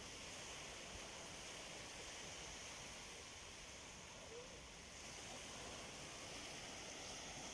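Faint, steady wash of small waves on a sandy shore, with a low rumble of wind underneath.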